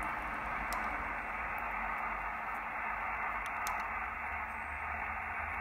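Steady static hiss from an Icom IC-7000 transceiver's speaker, tuned to an idle 20-metre single-sideband frequency with no station transmitting.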